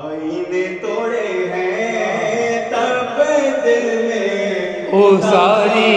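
Devotional chanting: a sung melody in long held notes that waver, growing stronger and more ornamented near the end.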